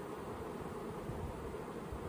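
Honeybees buzzing as a steady hum around an open honey super.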